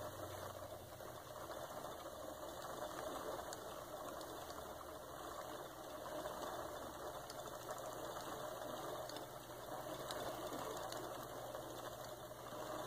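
Antique Frister & Rossmann hand-crank sewing machine winding a bobbin, faint and steady. With the balance wheel released, the crank turns only the bobbin winder and the needle stays still.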